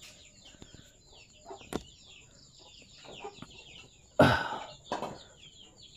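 Chickens clucking and chicks peeping in quick, falling chirps. About four seconds in comes a loud slapping thud as the catch of walking catfish is tipped out of the fish trap onto concrete.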